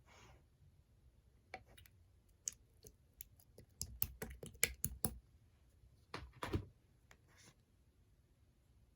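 Clear slime being squeezed and worked by hand, giving a run of small, sharp clicks and pops, thickest in the middle with a quick cluster a little later.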